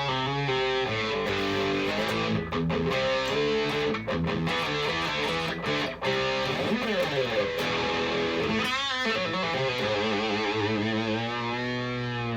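Harley Benton 550 Deluxe II single-cut electric guitar played through an amp: a run of notes and chords, with a long pitch slide about halfway through and wavering bent notes near the end.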